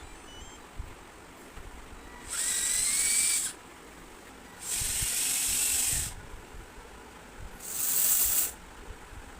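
Small electric motors of a homemade radio-controlled excavator whining in three bursts of a second or so each, rising in pitch as each starts.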